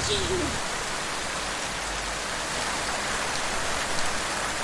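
Steady, even hiss, like rain, with no clear source event in it.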